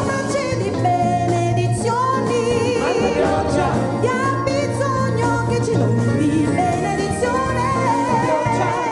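A choir singing with two women leading on microphones; the lead voices have a wavering vibrato over a backing with a steady bass line.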